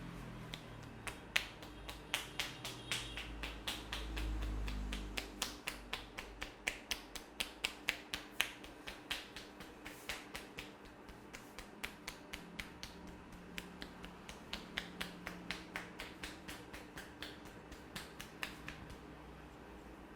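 A barber's hands slapping and clapping in a fast, even rhythm during a percussive head and back massage: sharp claps about three or four a second.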